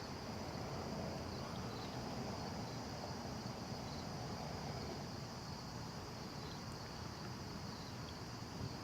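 Insects chirping in a steady, unbroken high-pitched drone, over a low background hiss.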